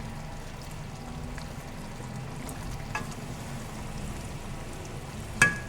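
Chicken and turnip curry sizzling steadily in a pot without added water, with a single sharp, ringing metallic clink near the end.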